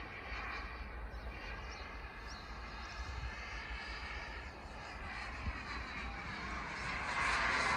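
Jetcentral 90N model jet turbine powering a Fox glider in flight, a steady whine that grows louder near the end as the plane passes overhead.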